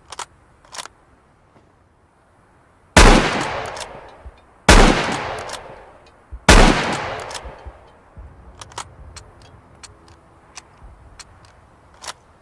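Type 37 sniper rifle firing three shots a little under two seconds apart, each report dying away in a long echoing tail. A couple of small clicks come before the shots, and a scatter of light ticks follows them.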